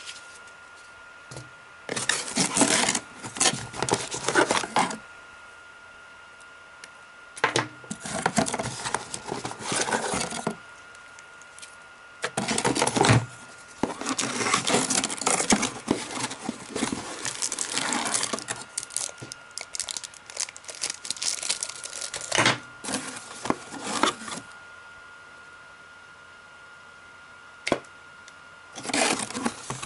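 Cardboard box and plastic wrapping being handled during unboxing: bursts of rustling, crinkling and scraping, with quiet pauses between them.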